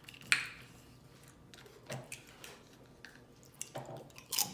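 Close-up wet mouth sounds of someone eating: chewing and lip smacking, a string of soft clicks with one sharper click just after the start.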